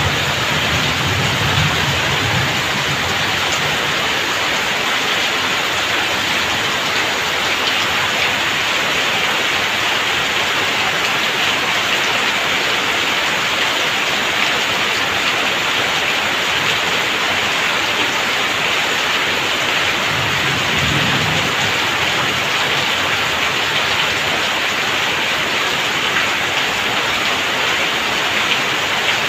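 Heavy downpour: a steady, dense hiss of rain on a tiled roof and wet ground, with runoff streaming off the eaves. A low rumble of distant thunder comes near the start and again about twenty seconds in.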